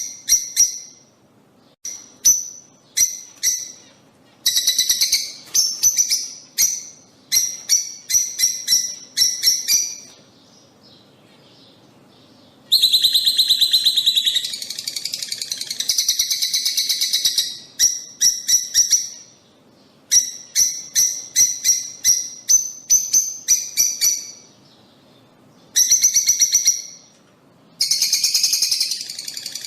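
Lovebirds calling: sharp, high-pitched chirps in quick runs with short pauses between them, and a longer stretch of continuous shrill chattering about halfway through.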